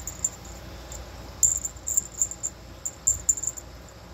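A series of short, high-pitched chirps at irregular intervals, about a dozen in all, most of them between about one and a half and three and a half seconds in, then stopping.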